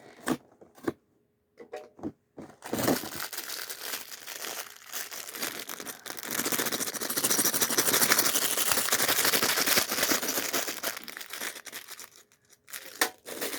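Packaging of a LEGO advent calendar door being crinkled and torn open, continuous and loudest in the second half, after a few light clicks at the start.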